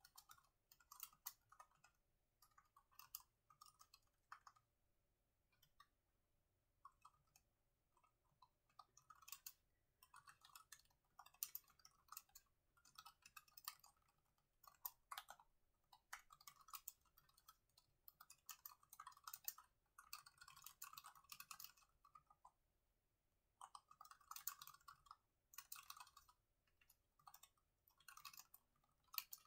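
Soft typing on a laptop keyboard: runs of rapid key clicks broken by short pauses.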